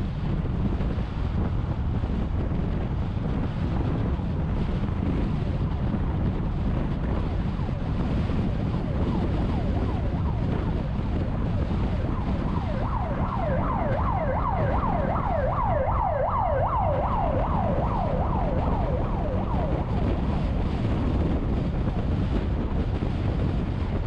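Steady tyre and wind rumble from a car driving at speed on an expressway. About halfway through, an ambulance siren comes in for around six seconds, a rapid yelp of rising sweeps about three a second, then fades out.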